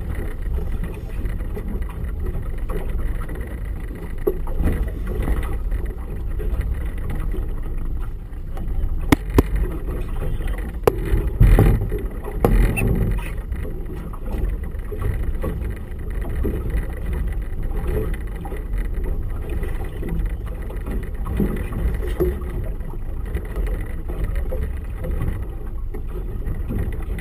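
Small boat's outboard motor running under way, a steady low rumble mixed with wind and water noise. A few sharp knocks come about 9 to 13 seconds in.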